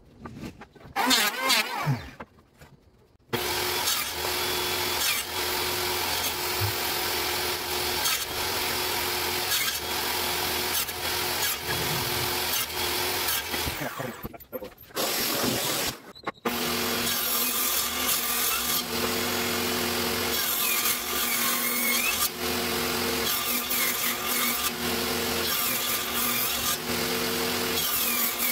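A few knocks of wood in the first seconds. Then a power tool runs steadily, and after a short break past the middle a homemade table saw (a circular saw mounted under a plywood top) runs with a steady whine and rips hardwood strips.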